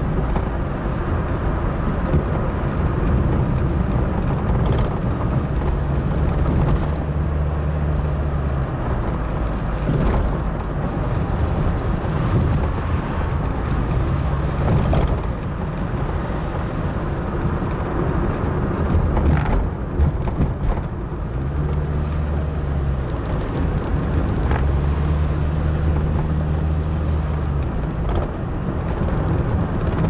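Car driving on a winding road: engine running under steady tyre and road noise, the engine note shifting up and down several times as the speed changes through the bends.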